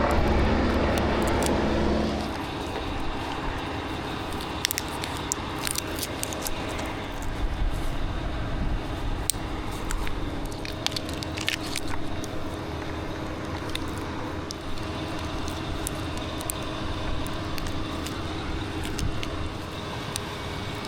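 An engine runs at higher speed for about two seconds, then drops to a lower, steady idle. Scattered light clicks and crackles sound throughout.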